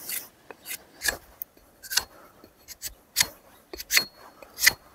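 Hatchet blade striking a thin wooden stick to sharpen its end: a run of sharp, irregular chopping cracks, about two a second.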